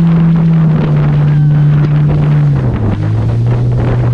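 Jet ski engine running under wind buffeting on the microphone, its steady tone dropping in pitch in a few steps as the throttle eases off, about a second in and again near three seconds.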